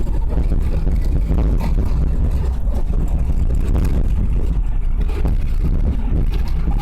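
Train running with a steady low rumble, with faint clicks scattered through it.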